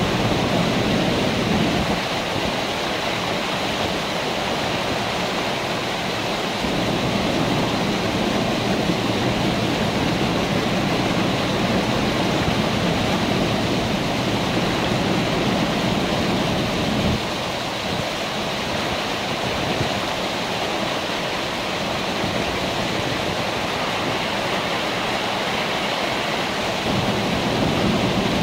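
Fast, high river water rushing over a submerged dam wall: a steady, unbroken rush of white water.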